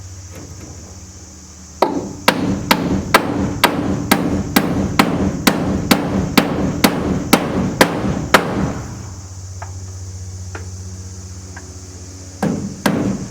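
Hammer driving nails into wood framing: a steady run of blows, about three a second, lasting some six seconds. After a pause of a few seconds the hammering starts again near the end.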